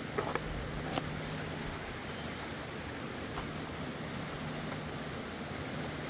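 Steady rush of a river flowing over rocks, with a few light clicks.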